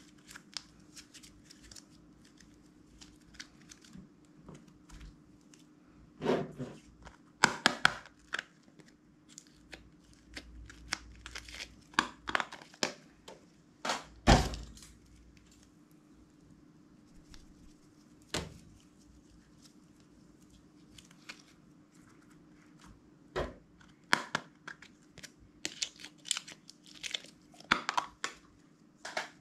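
Hands handling slime and small clear plastic slime tubs: scattered clicks, rustles and squishes in irregular clusters, the loudest a knock about fourteen seconds in.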